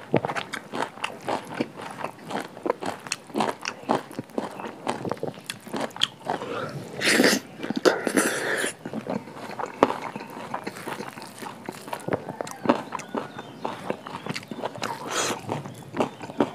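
Close-miked eating: a person chewing and crunching food in many short, sharp crackles, with two louder, longer noisy bursts about seven and eight seconds in.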